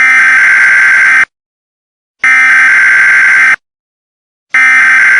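Emergency Alert System SAME header: three bursts of digital data tones, each about a second and a quarter long with about a second of silence between, the third still sounding at the end.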